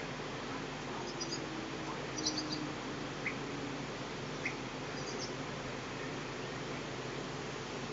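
A few short, high chirps from European bee-eaters, scattered over several seconds, over a steady hiss.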